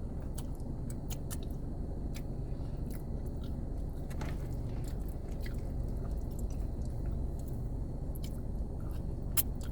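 Close-miked chewing of chicken alfredo pasta: soft, wet mouth clicks and smacks scattered irregularly, over a steady low rumble.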